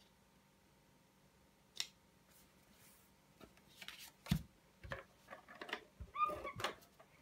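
Cardstock squares are handled and knocked down onto the table with a couple of sharp taps. Then, about six seconds in, an ATG adhesive tape gun gives short, high squeaks as it is run across the paper. The tool squeaks because it is old and needs oiling.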